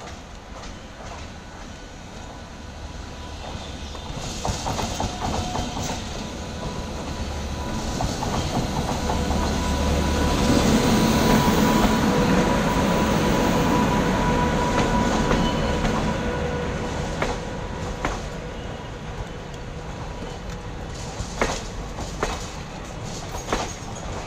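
Indian Railways electric locomotive hauling a train of passenger coaches, approaching and passing close by. The sound builds to its loudest about halfway through as the locomotive goes by, with a steady whine. The coaches then roll past, with sharp clacks of wheels over rail joints near the end.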